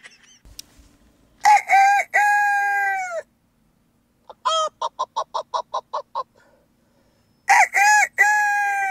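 Rooster crowing cock-a-doodle-doo twice, about six seconds apart, each crow a short note then a long held one. Between the crows comes a quick run of about ten short clucking notes.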